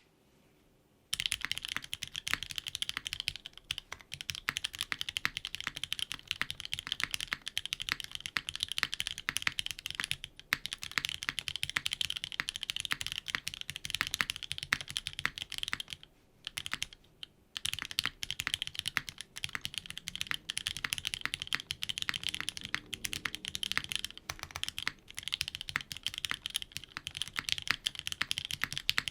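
Fast continuous typing on a mechanical keyboard with linear Gateron Ink Black v2.1 switches, lubed and filmed, on an aluminium plate under GMK keycaps. The keystrokes begin about a second in and break off briefly twice, around a third of the way through and again past the middle.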